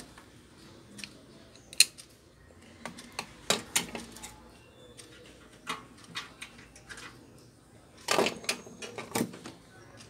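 Scattered sharp clicks and light metal taps from wires, connectors and small parts being handled inside a microwave oven's sheet-metal cabinet. The loudest click comes about two seconds in, with a quick run of clicks near the end.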